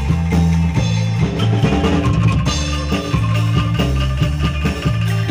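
Live band music amplified through a PA sound system: drum kit and drum hits over a heavy bass line, with acoustic guitar, bass guitar and keyboard, in a steady rhythm.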